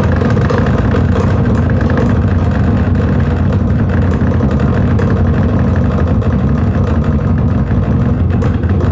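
Engine-sound generator box playing a simulated Volkswagen Beetle engine, a steady low running sound with no change in pitch.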